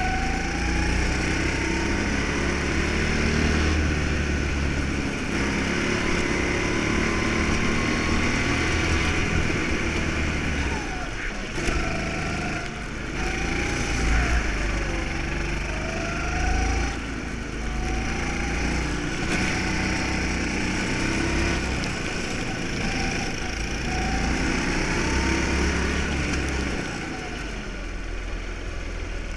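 Go-kart engine under way, its pitch rising and falling over and over as the driver accelerates out of corners and lifts off into them, heard from on board with a steady low rumble of wind and track noise.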